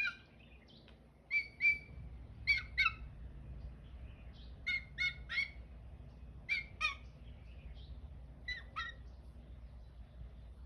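A bird chirping: short high chirps in pairs and triplets, repeated every second or two.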